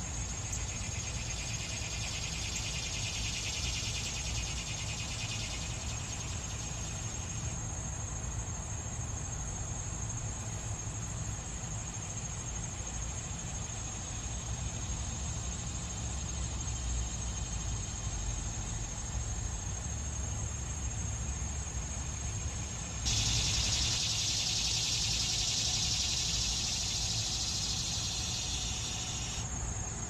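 Male annual cicadas buzzing: one buzz stops about seven seconds in, and another starts abruptly and louder about three quarters of the way through, stopping just before the end. A steady high-pitched insect trill and a low rumble run underneath.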